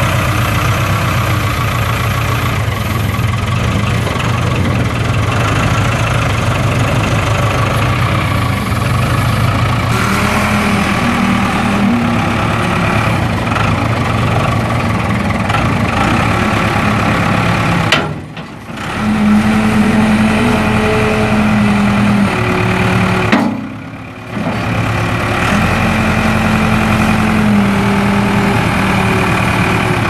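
Case 580K backhoe's four-cylinder turbo diesel engine running steadily, with its note stepping up and down from about ten seconds in. The sound drops away briefly twice, near the middle and again a few seconds later.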